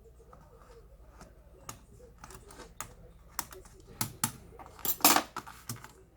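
Scattered plastic clicks and taps from an HP TPN-1105 laptop being taken apart by hand, coming faster in the second half, with a louder short scrape or rattle about five seconds in.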